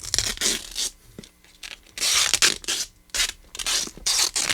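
Duct tape being peeled off a cardboard box in about five separate pulls.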